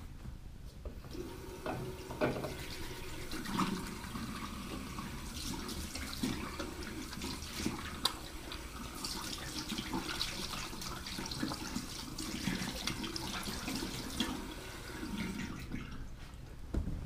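Bathroom tap running into a sink as hands are washed under it, with small knocks and clicks of things handled at the basin. The water starts about a second in and stops near the end, followed by a sharp knock.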